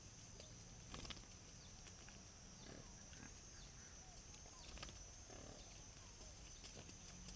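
Faint grunting and snuffling from wild boar foraging, with a few light clicks, over a steady high-pitched hum.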